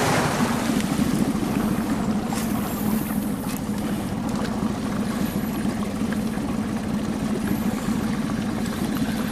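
Suzuki outboard motor running at a steady speed, pushing an inflatable boat along the river, with a steady drone.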